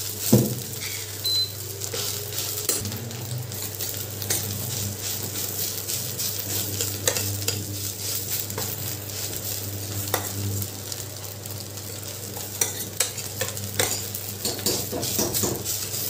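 Grated white gourd and coconut sizzling in a steel pot while a spoon stirs and scrapes it, with frequent short clinks of the spoon against the pot. A steady low hum runs underneath.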